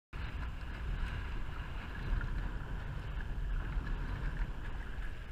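Wind buffeting the microphone of a kayak's bow-mounted camera, with water lapping and trickling against the kayak's hull as it moves over the river.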